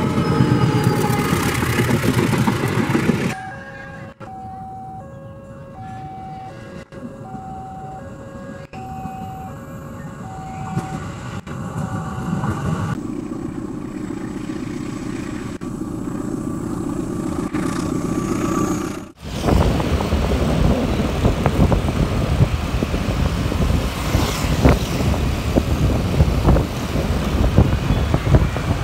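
A CC 201 diesel-electric locomotive passes close by with a loud rumble. After about three seconds the sound drops to a quieter stretch in which two electronic notes, one high and one low, alternate roughly once a second for about ten seconds. About nineteen seconds in, the sound cuts to steady road noise from a moving vehicle in traffic.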